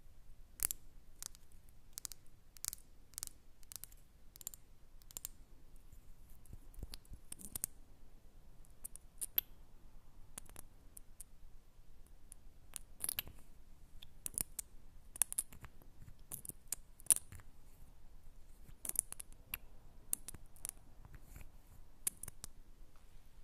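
Close-miked ASMR trigger sounds, made by a person imitating the noises of objects: irregular sharp, crisp clicks and snips that come in clusters with short pauses between them, faint overall.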